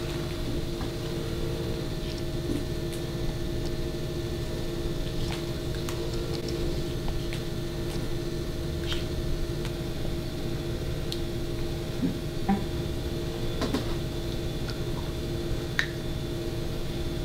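Steady mechanical hum in a small room, with scattered faint clicks and taps as blood-draw supplies are handled at the arm.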